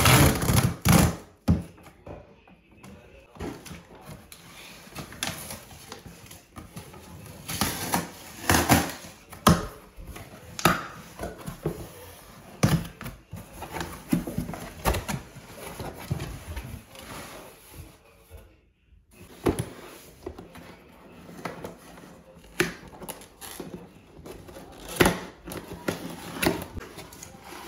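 Cardboard shipping box being opened by hand: packing tape slit and torn, cardboard flaps pulled back, and an inner carton slid out and set down, an uneven run of sharp rustles, rips and knocks.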